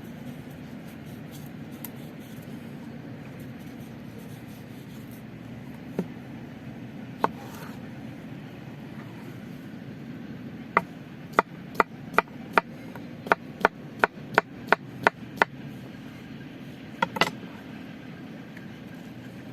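Sharp chopping strikes on wood: a couple of single knocks, then a quick run of about a dozen, roughly two or three a second, and a final double knock. A steady low background sound runs underneath.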